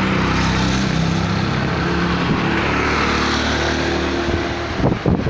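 Steady drone of a vehicle engine at an even pitch, mixed with road and wind noise, heard from a moving vehicle as it drives along.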